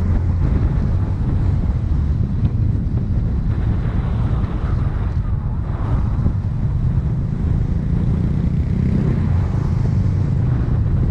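A motor running steadily with a low rumble, with wind buffeting the microphone.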